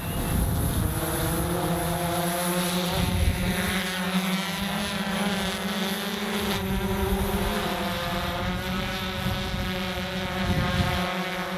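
Rakuten multirotor delivery drone's propellers running with a steady pitched buzz as it lifts off and flies, over patches of low rumble.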